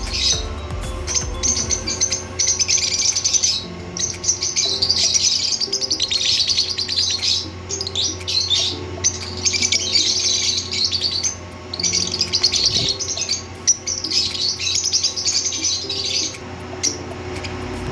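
Lovebirds chirping: rapid, high-pitched chatter in bouts of a few seconds separated by short breaks, stopping shortly before the end.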